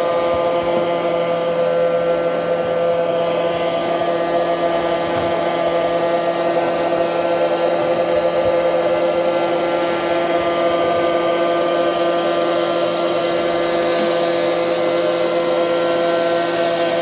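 Britânia robot vacuum cleaner running, its motors giving a steady, even whine of several tones over a hiss.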